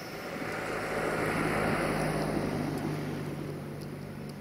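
A car passing on the road: tyre and engine noise that swells over about two seconds and then fades away.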